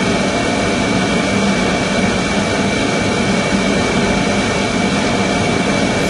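Water desalination plant machinery running steadily: a dense, even mechanical noise with a constant high whine and a low hum underneath.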